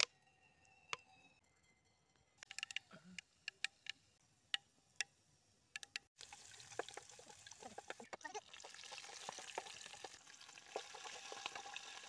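Hot cooking oil in a metal kadai giving scattered sharp pops and ticks. From about six seconds in, seeds sizzle and splutter in the oil as a steady hiss with many crackles, the tempering stage of the curry.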